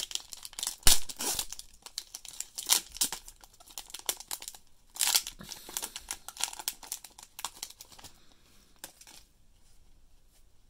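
Foil wrapper of a 2020 Prizm football trading-card pack being torn open and crinkled by hand. Quick, irregular crackles and rips come loudest about a second in, then thin out to faint handling near the end.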